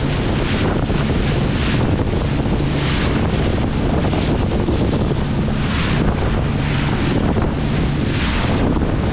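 Small open boat's outboard engine running at speed with a steady hum, under heavy wind buffeting on the microphone and the rush of the wake and spray, which swell every second or so as the hull meets the chop.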